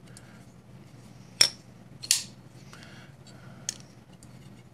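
Cold Steel AD10 folding knife with titanium scales being flicked: two sharp snaps of the blade swinging and locking, under a second apart, then a faint click, as the action is tested after reassembly.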